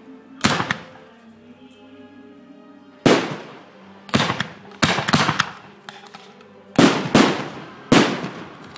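Fireworks shells bursting in the sky: about ten sharp bangs, each trailing off in an echo, irregularly spaced with several coming in quick succession in the second half. Music plays faintly underneath between the bursts.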